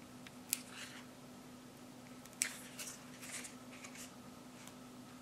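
Faint clicks and rustles of plastic makeup cases and packaging being handled, with two sharper clicks about half a second and two and a half seconds in.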